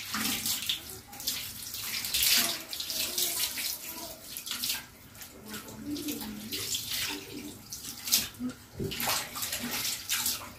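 Water from a tap running and splashing into a washbasin as hands rub and rinse the basin, the splashing rising and falling unevenly.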